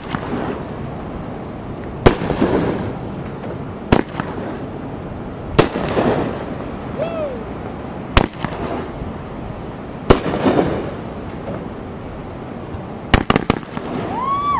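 Consumer aerial fireworks going off: a sharp bang about every two seconds, each followed by a brief rumbling echo, with a quick run of several bangs near the end.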